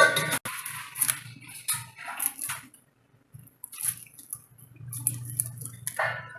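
Water splashing and dripping in a vessel in short irregular bursts, with brief knocks. A low steady hum comes in near the end.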